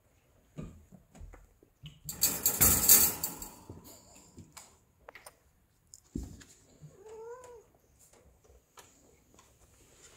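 A ragdoll cat gives one short meow, rising then falling in pitch, about seven seconds in. Earlier, from about two to three and a half seconds in, a louder burst of rustling noise.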